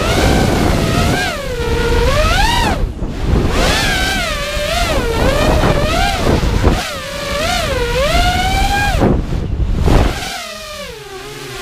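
An FPV freestyle quadcopter's EMAX RS2205 2300KV brushless motors and propellers whining. The pitch rises and falls repeatedly as the throttle is worked, over wind rushing past the onboard camera's microphone. Near the end the throttle comes off and the whine drops lower and quieter.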